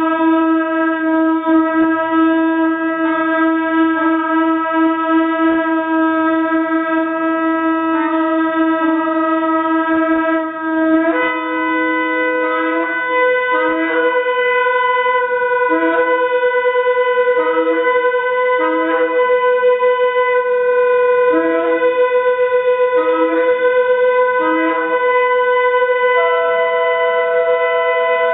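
Shofar blown in long held notes. About 11 seconds in, it steps up to a higher held note, with short repeated lower blasts sounding over it; near the end another higher note joins.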